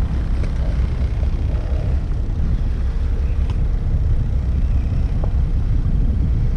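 Steady low rumble of a small fishing boat at sea, with a few faint clicks.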